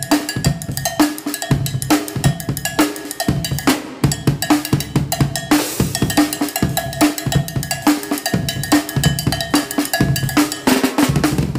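Drum kit played in an 11/16 groove: a dense, repeating pattern of drum and cymbal strokes in an odd meter.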